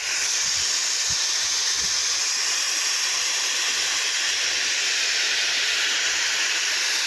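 Gas cutting torch hissing steadily at full flow, an even rushing hiss with no crackle.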